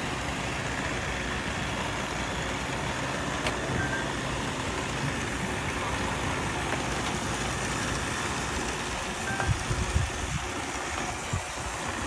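Several robot vacuums running at once on a tabletop, a steady whir of their motors and brushes, with a few low thumps about ten seconds in.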